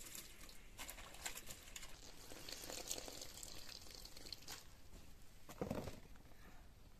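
Wet squelching, dripping and small splashes as hands squeeze and rinse raw meat pieces in water in an aluminium bucket, with a duller thump about five and a half seconds in.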